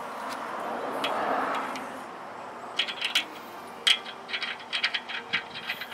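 Light metallic clinking and rattling as the axle nut is threaded by hand onto the stub axle of the Tesla's front hub. The clicks come as short, quick taps starting about three seconds in.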